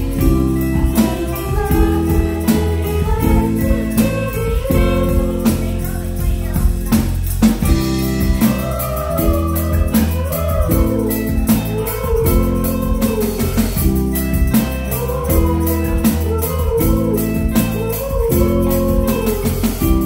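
Live band playing a song: electric guitars, bass, keyboard and drum kit keeping a steady beat, with a lead melody line that bends in pitch over the chords from about halfway through.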